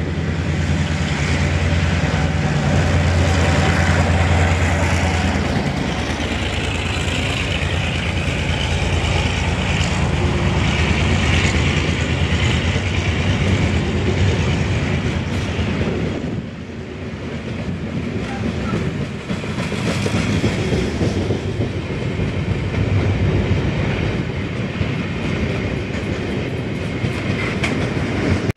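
EMD G22 diesel-electric locomotive passing close with its engine running, a deep steady drone that is strongest for about the first six seconds. After it the long train of passenger carriages rolls by with a continuous rumble of wheels on rails, lasting until the end.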